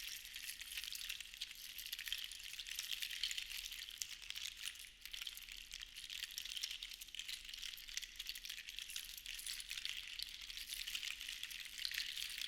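Seashells rattling together in a steady, dense patter of tiny clicks that eases briefly about five seconds in.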